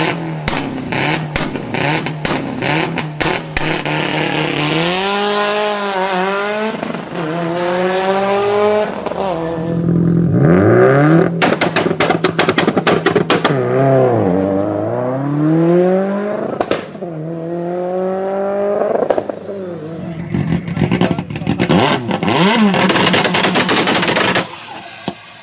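Performance car engine revved up and down again and again, the exhaust popping and crackling in rapid volleys of bangs between the revs, densest at the start, in the middle and near the end.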